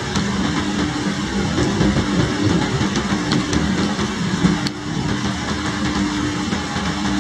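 Heavy rain falling steadily, with a steady low mechanical hum beneath it.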